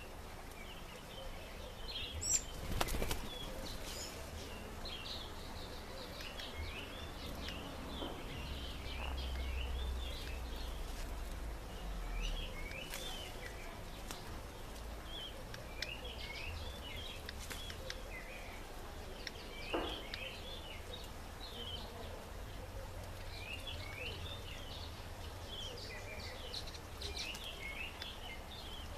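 Birds chirping in a tree, short high calls repeating all through, with a couple of sudden fluttering noises, one about two and a half seconds in and another near twenty seconds.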